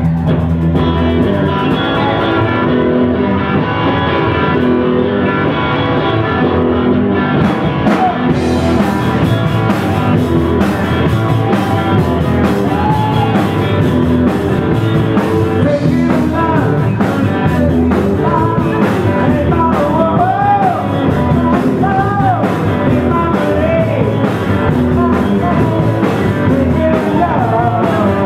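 Live band playing loudly and steadily on electric guitars, bass and drum kit, with a singer's voice over it. The sound grows brighter about eight seconds in, and the sung line rises and falls more plainly in the second half.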